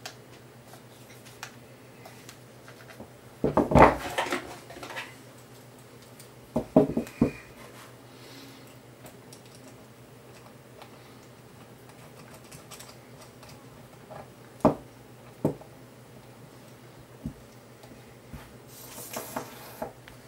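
Clicks and small knocks of parts being fitted to a handheld radio receiver's case as it is put back together: a clatter a few seconds in, another about seven seconds in, a few single clicks later, and a short rustle near the end, over a faint low hum.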